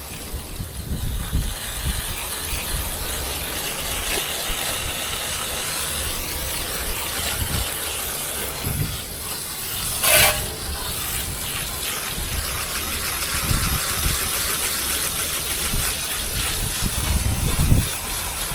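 Garden hose spray nozzle hissing steadily as water is sprayed through an air-conditioner condenser coil to clean it, with a brief louder gush about ten seconds in.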